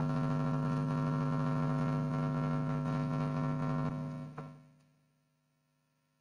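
Steady electrical hum and buzz, mains interference on the recording, that fades out about four and a half seconds in.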